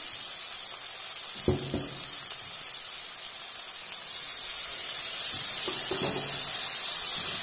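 Onion-tomato masala frying in hot oil in a kadhai, sizzling steadily. About four seconds in, soaked ground spices thinned with water are poured in and the sizzle grows louder. There are a few light knocks, one about a second and a half in and two more near six seconds.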